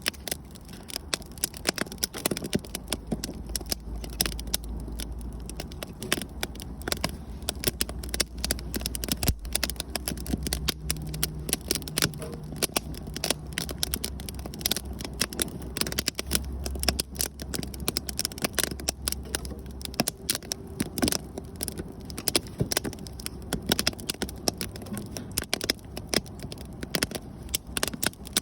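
Wood bonfire crackling, with frequent sharp pops and snaps, over a low steady rumble.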